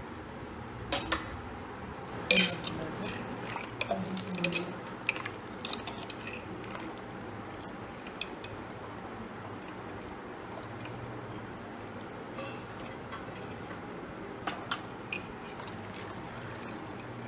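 Wire-mesh spider strainer clinking and scraping against a metal pot while scooping drained boiled rice out of its water, in a few sharp metal knocks: the loudest about two and a half seconds in, a cluster just after, and a couple more near the end.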